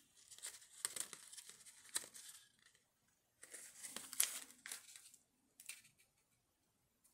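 Faint rustling and crinkling of cardstock and patterned paper as a folded card is handled, flexed and adjusted with tweezers. It comes in two stretches a couple of seconds long, followed by a brief one.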